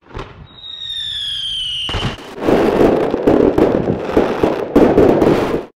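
Fireworks: a whistling firework gives a falling whistle, then from about two seconds in a dense barrage of crackling and popping that cuts off suddenly near the end.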